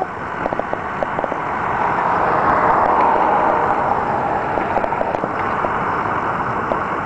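A car passing on the street: its tyre and engine noise swells to a peak about three seconds in, then slowly fades. There are a few light ticks in the first second or so.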